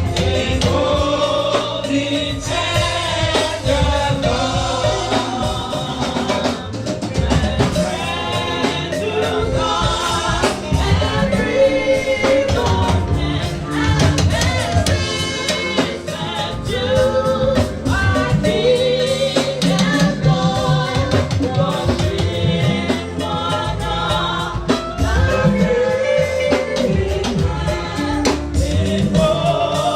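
Group of voices singing a gospel hymn with a drum kit and percussion keeping a steady beat.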